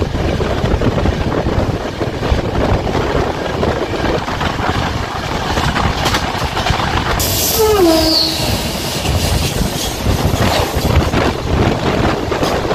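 Steady rumble and rattle of a moving Indian Railways express passenger train, heard from its open coach door. About seven seconds in, a train passing in the opposite direction on the adjacent track adds a sudden rushing hiss and a brief falling tone.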